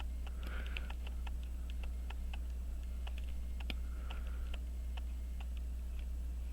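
Light metallic ticks, about four or five a second, from a small Elgin pocket-watch movement being worked on, over a steady low electrical hum.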